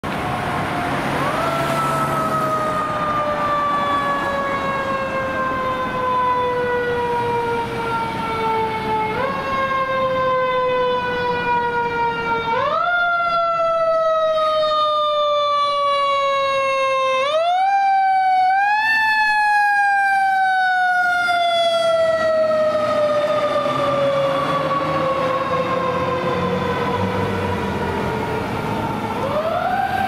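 Fire engine's siren wailing as the truck drives past. Each wail climbs quickly and then falls slowly over several seconds, over and over. A low rumble of engine and traffic runs underneath.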